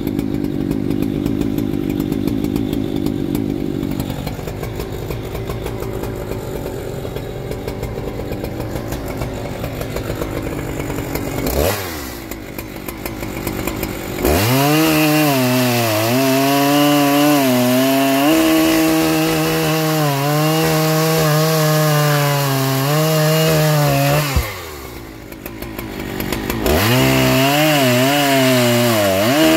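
Husqvarna 3120XP two-stroke chainsaw running at low revs, revved briefly about 12 seconds in. It then runs at full throttle for about ten seconds, its pitch wavering as the chain bites into the log. It drops back toward idle for a couple of seconds, then opens up again to cut on near the end.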